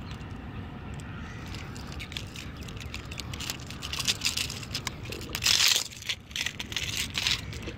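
Hand-held pliers clicking and scraping against a lure's metal hook as it is worked out of a fish's mouth, where the fish has swallowed it, with crackling handling noise. The clicks start about three and a half seconds in, the loudest burst comes about five and a half seconds in, and a low steady rumble runs underneath.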